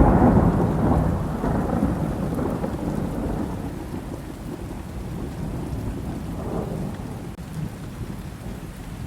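Heavy rain falling, with a loud, low rumble of thunder at the start that dies away over the next few seconds, and a smaller swell of rumble later on.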